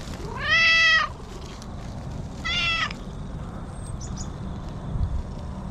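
Orange-and-white cat meowing twice: a longer, louder meow, then a shorter one about two seconds later.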